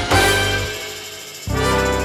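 Background music: one track dies away, and a different track starts abruptly about one and a half seconds in.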